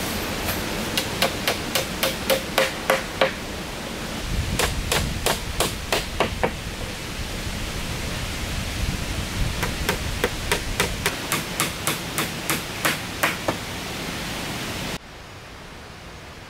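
A hand tool striking wood in quick, even blows, about three to four a second. The blows come in three runs of roughly eight to twelve strikes each, over a steady background hiss. The background drops away abruptly near the end.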